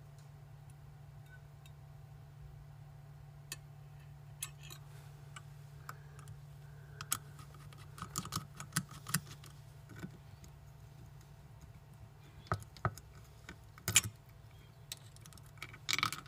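Scattered small metallic clicks and taps as the head stack assembly is worked loose and lifted out of an opened Seagate desktop hard drive. The clicks grow more frequent in the second half, over a faint steady low hum.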